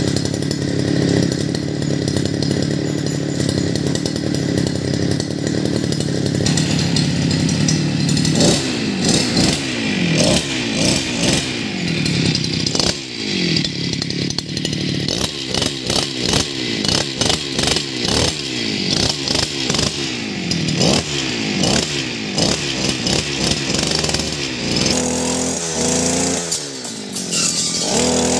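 Two-stroke 52cc petrol brush cutter engine running: it holds a steady speed at first, then from about eight seconds in it is revved again and again, with the pitch falling back after each rev. Near the end the pattern changes as the engine runs on at speed.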